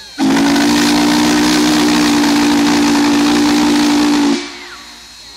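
Union Pacific No. 844's steam whistle blowing one long blast of about four seconds: a steady chord of several close tones over a rush of steam hiss, starting abruptly and cutting off sharply.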